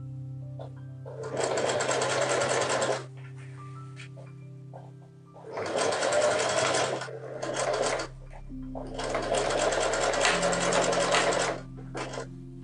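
Singer electric sewing machine stitching in three bursts of rapid needle strokes, each one to three seconds long, then two short bursts near the end, over quiet background music.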